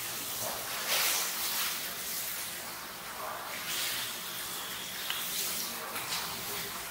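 Running, splashing water with a steady hiss that swells and fades every second or two, echoing in a tiled room.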